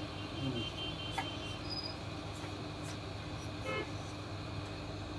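Hot air rework station blowing steadily on a phone motherboard to melt solder under a component, a steady rushing hum. A few light ticks and a faint high tone in the first second or so sit over it.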